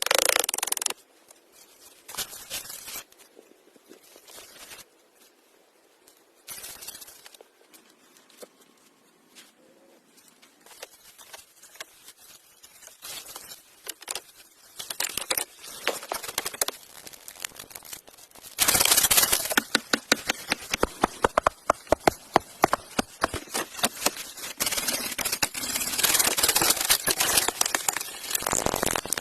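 Irregular scraping, rustling and crackling from hands working with materials, in short scattered bursts with quiet gaps; about two-thirds of the way in it turns into a long, loud run of dense sharp crackles and snaps.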